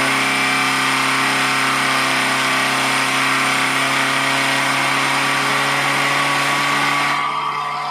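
Electric mixer grinder running at full speed with a bunch of threads in its jar: a steady, loud motor whine with a whirring rush over it. Near the end it begins to die away as the motor is switched off.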